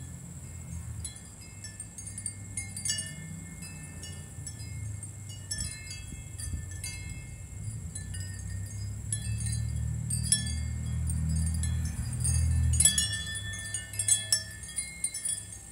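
Small chimes tinkling irregularly, bright ringing strikes scattered throughout and thickest near the end, over a low steady rumble.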